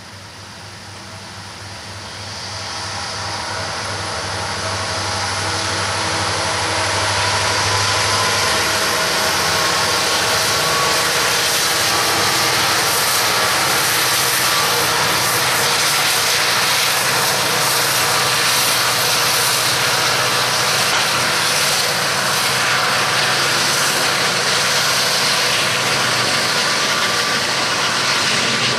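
Loaded coal train passing, led by a GE ET44AC and an EMD SD70M-2 diesel-electric locomotive. The engine sound swells over the first several seconds as the locomotives approach. Then comes a loud, steady rolling noise of the loaded coal hoppers' steel wheels on the rails.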